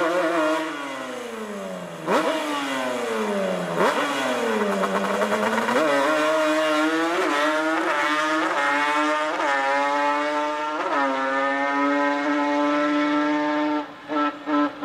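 Alcohol-fuelled Yamaha Banshee ATV's two-stroke twin revving, then accelerating hard, its pitch climbing and dropping through several quick gear shifts before holding one steady high note.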